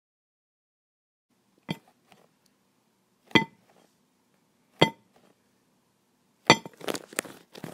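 Three separate ringing clinks of glassware, about a second and a half apart, then a quick run of clattering knocks near the end.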